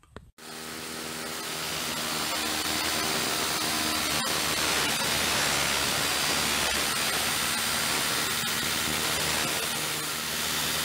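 Ozito circular saw fitted with an abrasive metal-cutting disc, running steadily at full speed. Its motor whine sits under a dense, even grinding hiss that comes in suddenly just after the start.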